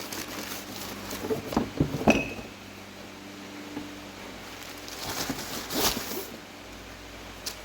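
Engine rebuild kit parts being handled and unpacked: a few sharp knocks with a brief metallic ring around two seconds in, then a rustle of packaging near the middle of the stretch, over a low steady hum.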